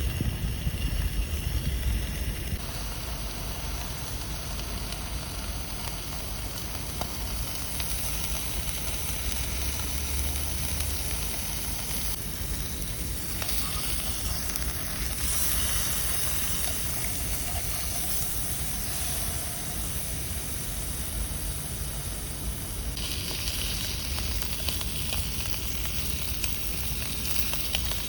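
Food frying with a steady sizzle, with low wind rumble on the microphone in the first couple of seconds.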